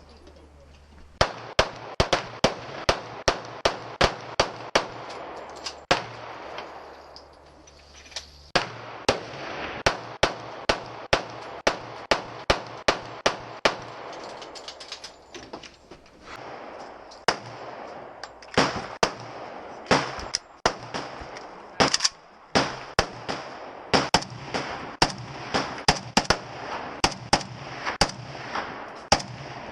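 Firearms shooting many single shots in quick succession, about two a second, with a pause of a couple of seconds about a quarter of the way in, then a steady string of shots again.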